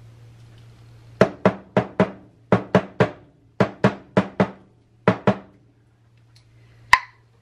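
A jar with a stuck lid knocked hard against a countertop to loosen it: thirteen sharp knocks in four quick bursts, then a single sharp click near the end. The lid is glued shut by dried hot fudge.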